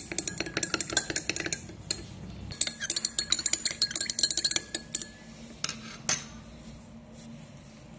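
A glass stirring rod clinking rapidly against the sides of a glass beaker as it stirs a liquid. It comes in two spells of fast tapping with a short break between, then two lone knocks later on.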